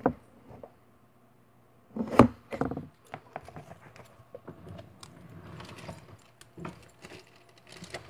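Wooden kitchen drawer being handled: knocks and rattles from the drawer and the boxes inside it, the loudest about two seconds in, and a scraping slide as the drawer is pushed partway shut.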